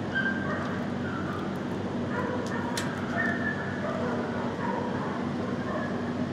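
Many dogs barking and yipping at once in a shelter kennel, a steady din of overlapping barks. A single sharp click comes nearly three seconds in.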